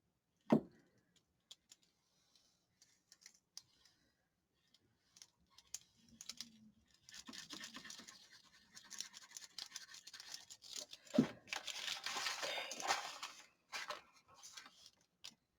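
Paper being handled and worked on a desk. A sharp knock comes about half a second in, then light clicks, then several seconds of scratchy rubbing or tearing on paper with another knock partway through.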